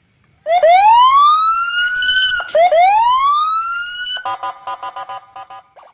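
Police siren sound: two rising wails, each climbing for nearly two seconds, then a fast choppy pulsing of the siren tone that fades out.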